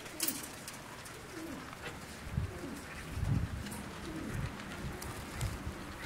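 Domestic pigeons cooing: a series of low, falling coos about once a second.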